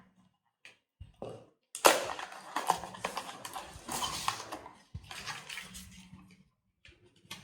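Hands unpacking a small accessory: a few clicks, then a sharp snap about two seconds in followed by several seconds of crackling and rustling of packaging.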